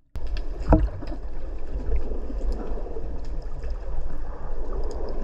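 Underwater camera audio of water rushing and bubbling around a speargun-mounted camera as a spearfisher swims up with a freshly speared sea bass: a steady low rumble, with one sharp knock about three-quarters of a second in.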